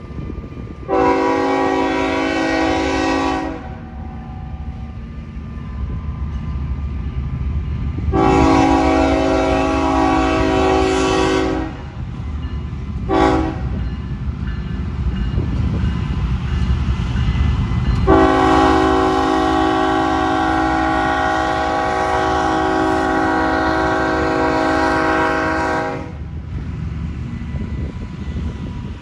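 Locomotive horn sounding the grade-crossing signal of long, long, short, long blasts, each one a chord of several tones at once; the last blast is the longest. A low rumble of the moving train runs underneath.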